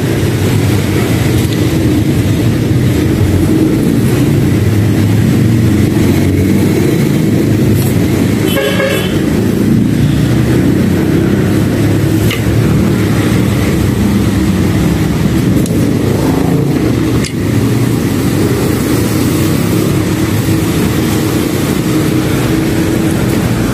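Steady low rumble of motor traffic, with a brief horn toot about nine seconds in.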